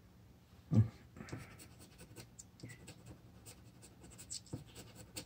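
Scratch-off lottery ticket being scraped with a small metal blade in many short, quick strokes. A dull thump about a second in is the loudest sound.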